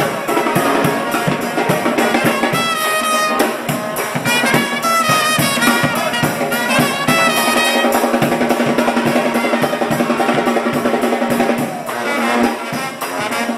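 Live New Orleans-style brass band playing upbeat street music: trumpet phrases over a steady drum beat and a sousaphone bass line. The trumpet lines stand out from about two seconds in until around eight seconds.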